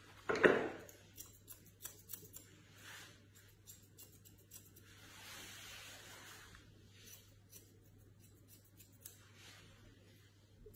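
Grooming scissors snipping the hair on a Shih Tzu's face around the eyes: quiet light clicks in short spurts, with a brief louder sound just after the start.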